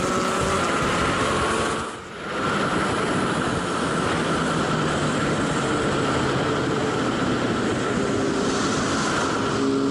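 Motorcycle riding at speed: a steady rush of wind noise over a faint engine note that climbs slowly, with a brief drop in level about two seconds in.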